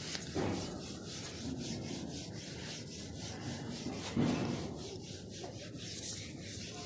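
A foam Scotch-Brite scouring pad scrubbed by hand back and forth over the wet glass of a solar panel: quiet, repeated rubbing strokes, a little louder just after the start and again about four seconds in.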